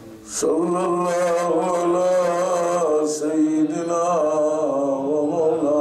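A man chanting a religious recitation in long, held melodic phrases, beginning about half a second in after a quick breath.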